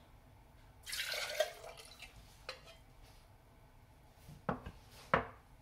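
Water splashing into a ceramic washbasin as a cup of practice water is emptied, about a second in, followed by a couple of sharp knocks near the end.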